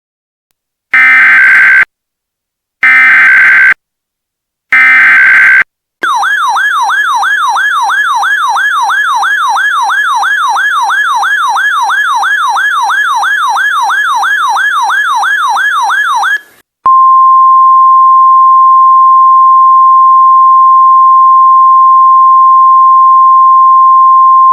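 NOAA Weather Radio alert sequence: three one-second bursts of SAME digital header data, then a RadioShack 12-996 electronic siren yelping at about three sweeps a second for about ten seconds, then the steady 1050 Hz weather radio warning alarm tone. The sequence signals the severe thunderstorm warning about to be read.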